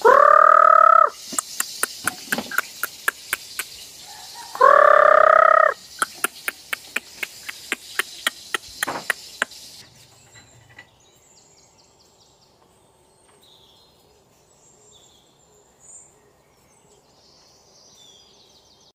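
Chickens pecking grain off hard concrete ground, a run of rapid sharp taps, with two loud chicken calls about a second long each: one at the very start and one about five seconds in. The pecking stops at about ten seconds, leaving only a faint background.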